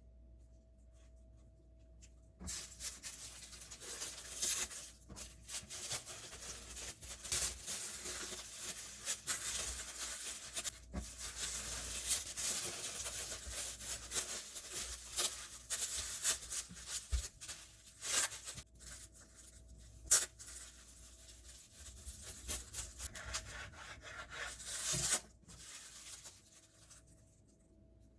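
Scraping and rustling sounds of sandwich preparation, with scattered sharp clicks and taps. They start about two and a half seconds in and stop near the end.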